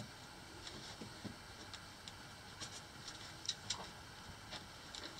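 Faint, irregular clicks and scuffs of a person climbing a rope up a rocky mine passage: boots and gear knocking and scraping on the rock.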